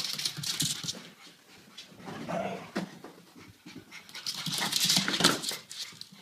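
A dog panting hard while its claws click and scrabble on a wooden floor as it runs, in two louder spells: at the start and again around five seconds in.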